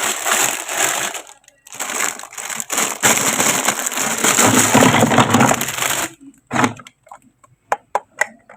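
Packaging being handled during an unboxing: a dense crinkling, crackling noise for about six seconds, then a few light separate clicks near the end.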